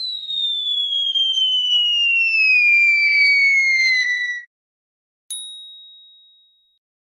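Cartoon falling-whistle sound effect: a long whistle gliding steadily down in pitch for about four seconds, then cutting off. After a short gap, a single bright ding rings out and fades.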